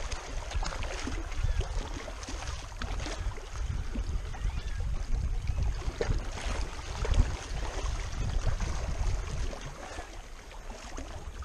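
Wind buffeting the camera microphone in uneven gusts, over small waves lapping against a rocky shoreline.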